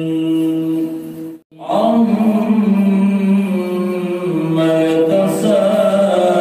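A man reciting the Qur'an in the melodic murottal style. He holds a long note, breaks off for a breath about a second and a half in, then starts a new phrase that winds up and down in pitch.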